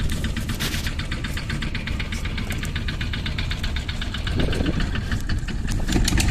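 Small fishing boat's engine running steadily, a low rumble with a rapid, even ticking on top.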